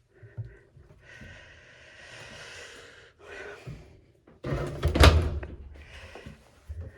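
A front-loading washing machine door shut with a single loud thump about halfway through, after some quieter handling noise.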